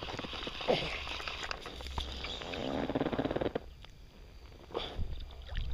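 Camera handling noise: the microphone rubbing and bumping against a shirt as the camera is swung about, over a low rumble.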